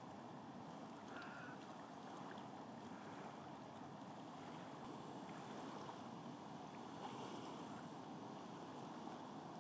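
Fast water rushing over a small waterfall and through rapids: a steady, faint rush with no change.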